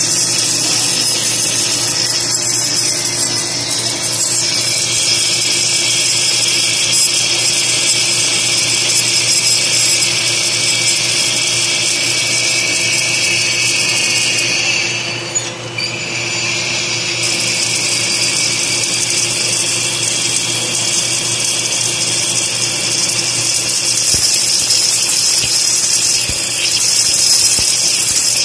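CNC wire EDM (electrical discharge wire-cutting) machine cutting metal, with spark erosion at the wire and coolant spraying over the workpiece. It makes a steady high hiss over a low hum, dips briefly about halfway through, and grows louder near the end.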